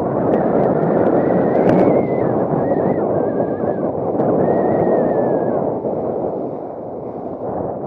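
Water rushing and spraying along the inflatable hull of a Tiwal 3 sailing dinghy moving at about 8 to 10 knots, a loud steady rush. A faint high wavering whistle comes and goes in the middle.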